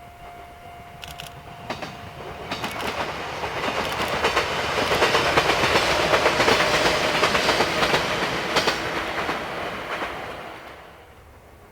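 A Chichibu Railway electric train passing, its wheels clattering over the rail joints, growing louder, loudest midway, then fading away shortly before the end.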